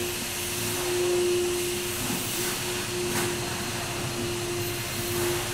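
A steady mechanical hum holding one pitch, dropping out briefly a few times, over a constant hiss.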